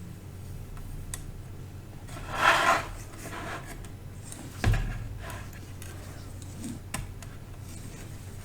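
Parts and tools handled on a workbench while tacking pin headers onto a circuit board: a brief scraping rub about two seconds in, a dull knock just before the five-second mark, then a few light clicks.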